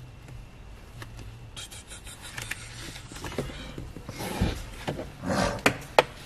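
Hands fitting a driver's airbag module into a steering wheel. Rustling and light knocks start about a second and a half in and grow louder, with two sharp clicks near the end.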